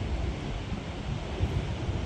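Storm-force wind buffeting the microphone: a gusting low rumble that flutters up and down, with a lighter hiss of wind above it.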